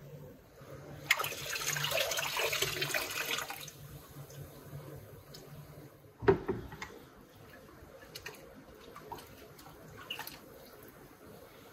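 Liquid sloshing and dripping as an antique iron's body is lifted out of a tub of murky rust-removal bath and moved about in it. A rush of water noise starts about a second in and lasts a couple of seconds, a sharp splash comes about six seconds in, then light drips and small splashes.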